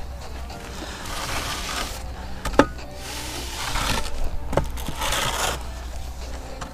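Wooden screed board being dragged across loose sand in several scraping strokes, levelling the sand bed for a concrete sub-base, with two sharp knocks of the board about two and a half and four and a half seconds in.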